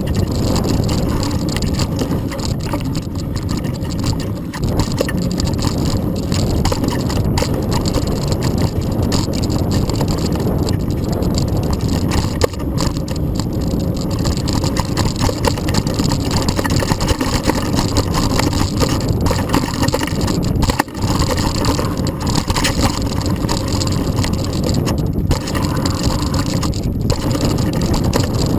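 Specialized Rockhopper Pro mountain bike riding fast down dirt singletrack, heard through a handlebar-mounted action camera: a steady loud rumble of tyres on the trail and wind on the microphone, with occasional knocks over bumps.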